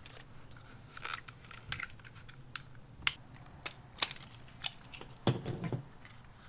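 Irregular small clicks and taps of hard plastic switch parts being handled and worked loose by hand.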